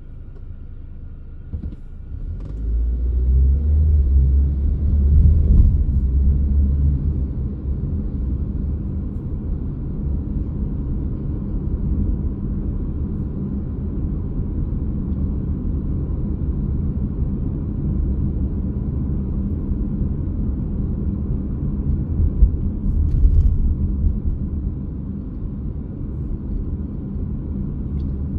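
Car driving along city streets: a steady low rumble of engine and road noise, swelling about two seconds in as the car pulls away.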